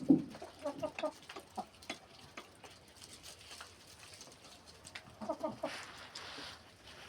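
Chickens clucking in short calls, loudest right at the start and through the first second and a half, then again about five seconds in, followed by a brief hiss.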